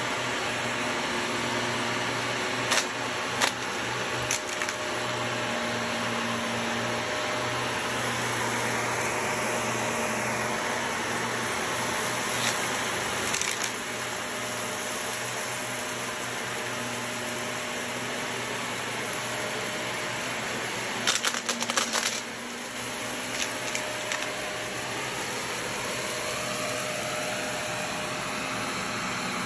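Shark upright vacuum cleaner running steadily over carpet, with scattered sharp clicks and rattles as grit and small debris are sucked up, including a dense rattling cluster about two-thirds of the way through.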